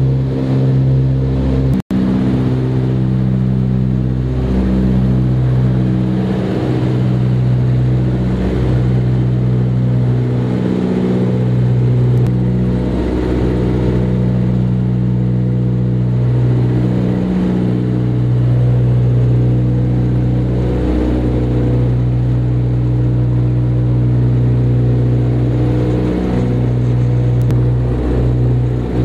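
The twin de Havilland Gipsy Major four-cylinder engines of a DH84 Dragon biplane droning steadily in cruise, heard inside the cabin. The tone wavers every second or two, and there is a momentary break in the sound about two seconds in.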